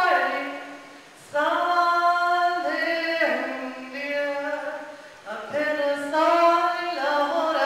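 A woman singing an icaro, an Amazonian shamanic healing chant, unaccompanied. She holds long notes that step from pitch to pitch, with short pauses for breath about a second in and again about five seconds in.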